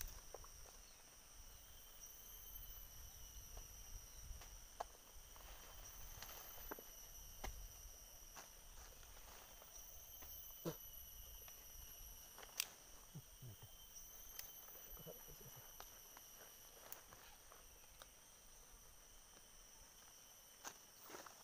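Faint, steady high-pitched drone of insects, several even tones held throughout, with scattered small clicks and ticks over it.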